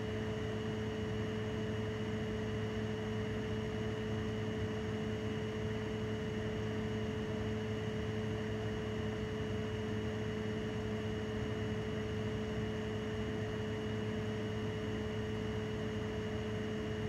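Steady hiss with a constant low hum and a few held tones, unchanging throughout, with no distinct events.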